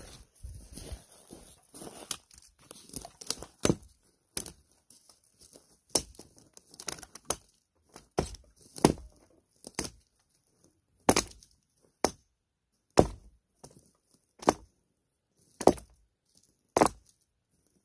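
Hatchet chopping into a dead, barkless fallen log: sharp strikes roughly once a second, after a couple of seconds of soft rustling.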